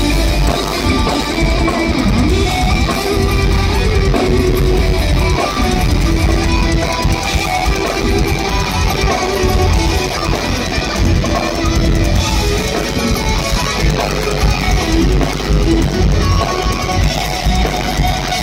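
Thrash metal band playing live at full volume: distorted electric guitars over a pounding drum kit and bass.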